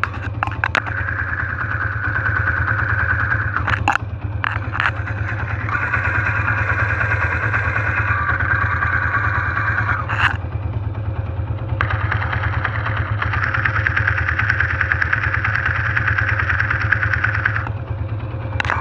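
Motorcycle engine idling, heard through a screwdriver pressed against the engine with an earphone serving as the pickup. Whenever the tip touches a part of the engine, its internal mechanical clatter comes through loudly, including valve tapping. This happens in three stretches of a few seconds each, with sharp clicks as the tool is set down or lifted.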